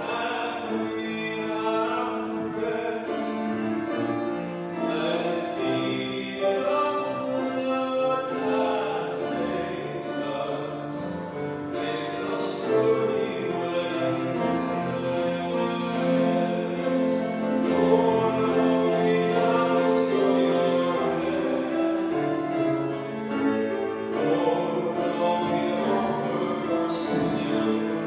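A church hymn sung with keyboard accompaniment, in long held notes that change every second or so.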